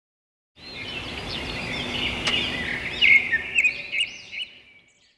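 Birds chirping over outdoor background noise, fading in about half a second in and fading out near the end.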